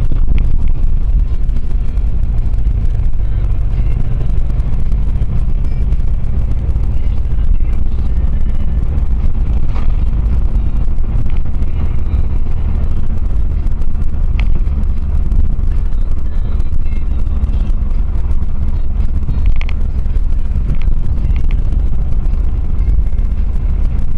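Renault Megane 1.5 dCi four-cylinder turbodiesel and road rumble heard inside the moving car's cabin: a steady low drone, with a few faint clicks now and then.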